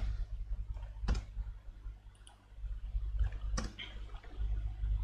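Computer mouse clicking a few times, the sharpest clicks about a second in and again at about three and a half seconds, over a low steady hum.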